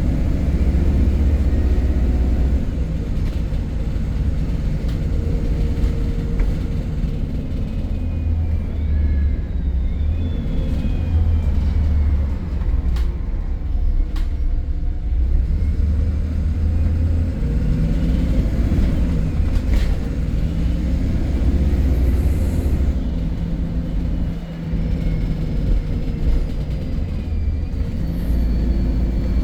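MAN E300 single-deck bus heard on board while in service: a steady low engine and drivetrain rumble whose pitch rises and falls as it pulls away and changes gear, with a few sharp rattles or knocks and faint whines over it.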